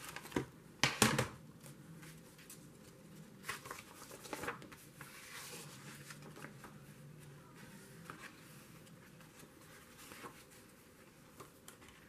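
Paper being handled on a table: a brochure is shifted and rustled, with a cluster of sharp clacks about a second in and a few lighter knocks around four seconds.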